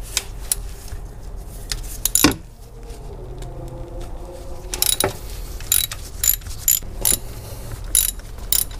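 Socket ratchet with an extension clicking as it loosens the 13 mm thermostat housing bolts, the clicks coming irregularly, one at a time and in short runs, more often in the second half.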